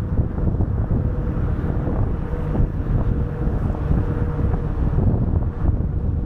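Wind buffeting the microphone of a camera mounted on a moving car, over the steady low rumble of the car on the road.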